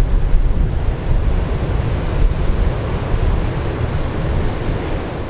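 Strong storm wind from an approaching hurricane buffeting the microphone over rough, whitecapped surf: a loud, steady rush, heaviest in the low end.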